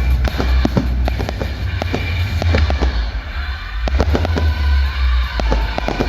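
Fireworks going off in a rapid, irregular series of bangs and crackles over a low rumble, with music playing alongside.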